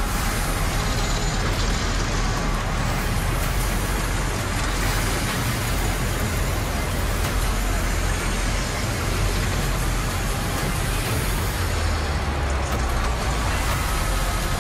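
Steady, loud noise of a large arena crowd over a deep low rumble.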